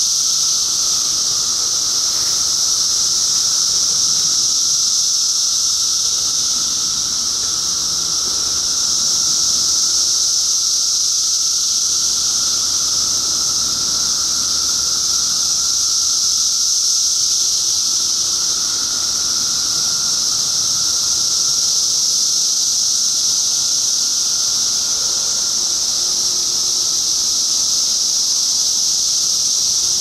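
Dense chorus of periodical cicadas (the 2013 Brood II emergence): a loud, steady, high-pitched shrill hiss with a fainter lower drone beneath it.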